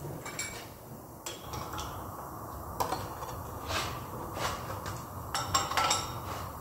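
Irregular metal clanks and knocks of a cast DC motor housing being handled on slings and a hoist and worked off a lathe, with the loudest cluster of knocks near the end. A steady low shop hum runs beneath.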